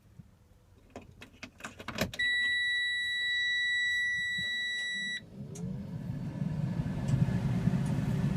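A few clicks, then the dash warning buzzer sounding one steady tone for about three seconds as the key is turned on, cutting off suddenly. The Mercedes MBE 4000 six-cylinder diesel then cranks and starts, coming up to a steady idle near the end.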